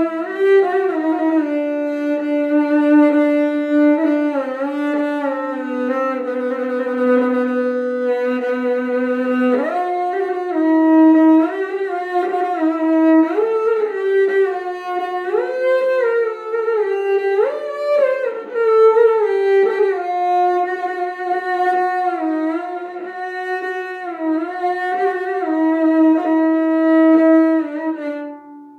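Music on a bowed string instrument in the violin's range, playing slow held notes with vibrato. The sound drops away near the end.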